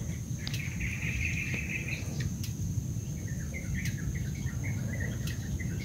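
Rural outdoor ambience: a steady high-pitched insect drone with birds calling over it, one warbling call about half a second in lasting over a second, then a run of short chirps from about three seconds in.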